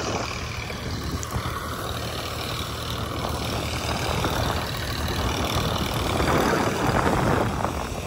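Tractor-driven mustard thresher running steadily: a low engine hum under a broad rushing noise, a little louder near the end.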